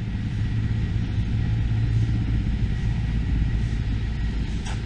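A steady, low mechanical rumble with an even hum, like an engine or power unit running.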